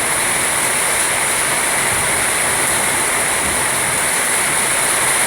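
Heavy rain pouring down in a windstorm: a steady, dense rushing noise of rain and strong wind gusts.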